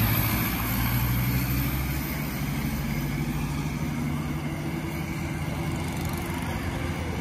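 Diesel engines of a Sonalika 750 turbo and a Mahindra 415 turbo tractor running under throttle. The sound fades over the first couple of seconds as the tractors pull away, then a steady low engine hum carries on.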